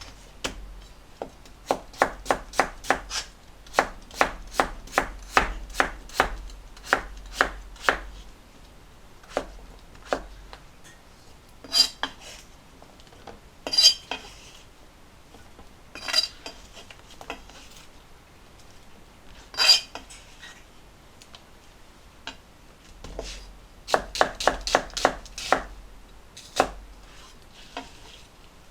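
Kitchen knife chopping on a cutting board in runs of quick, even strokes, about two or three a second, with a pause in the middle filled by a few sharper, scattered knocks.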